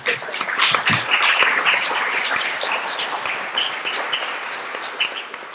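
Audience applauding: a dense patter of many hands clapping that slowly dies down toward the end.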